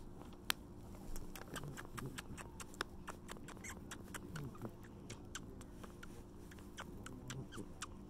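A hand stroking and scratching a cat's fur close to the microphone: irregular soft crackles and clicks, over a low steady hum.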